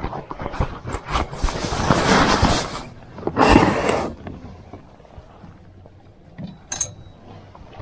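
Rustling and scraping of fishing tackle being handled at a plastic tackle box, with a few sharp clicks. The sound comes in bursts for the first few seconds, then quietens, and there is a brief high squeak near the end.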